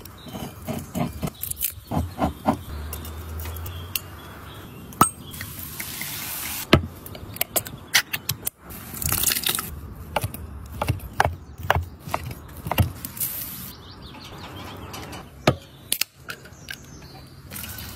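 A wine bottle being opened with a waiter's corkscrew, followed by a small tin and a carton of beef stock being opened: a string of sharp clicks, scrapes and pops, broken by a few short stretches of pouring liquid.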